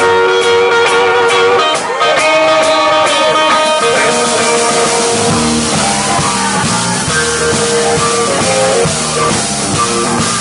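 Live blues-rock band: electric guitar playing over light, regular cymbal ticks, then a bass line and fuller drumming come in about five seconds in.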